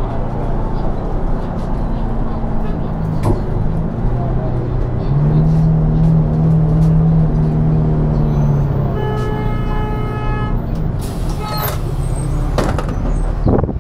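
City bus engine running, heard from inside the passenger cabin: a steady low rumble whose hum grows stronger for a few seconds in the middle. Near the end comes a short run of electronic beeps, followed by a brief hiss.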